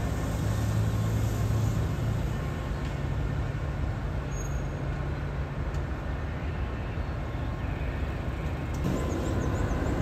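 Alstom diesel-electric locomotive engine running steadily with a low hum, during coupling onto a passenger train. A brief click about nine seconds in, after which the rumble shifts.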